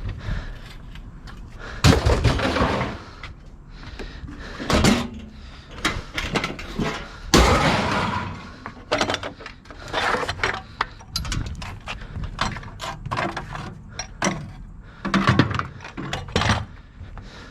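Scrap metal being handled and tossed: a run of irregular clanks, bangs and scraping, with a loud crash about two seconds in and another about seven seconds in.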